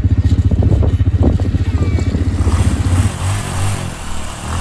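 Small youth ATV engine running with a fast, even pulse. About three seconds in its note drops and softens, with a hiss of wind over it.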